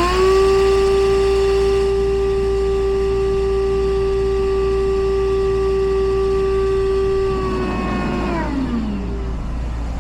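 High-speed electric motor spinning up quickly to a steady whine, running about seven seconds, then cutting off and winding down with a falling pitch.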